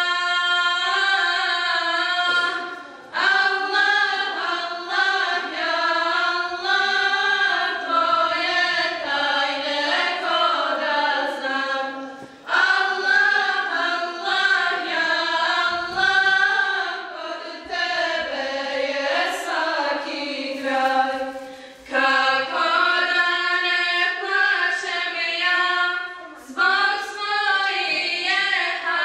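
A choir singing an ilahija, a Bosnian Islamic devotional hymn. It sings long melodic phrases with brief breaks between them, about every five to ten seconds.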